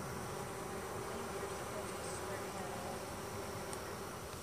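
Steady buzzing of a colony of European-descended (non-Africanized) honeybees swarming over the top bars and comb of an open hive super.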